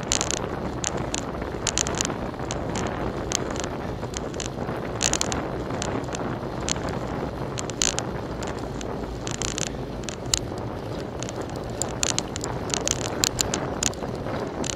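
Wind buffeting the microphone of a bicycle-mounted camera while riding, over a steady road rumble, with frequent short, sharp clicks and rattles.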